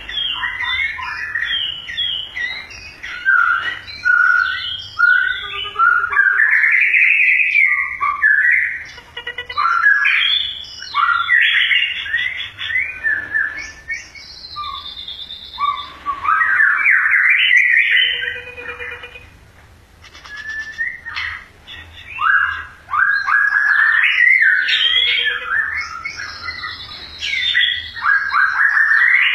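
Caged songbird singing a long, varied song of quick whistled phrases that slide up and down in pitch, with a short pause about twenty seconds in.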